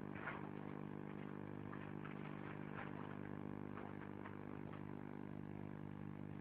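A steady low hum made of several even tones, unchanging throughout, with faint scattered clicks over it.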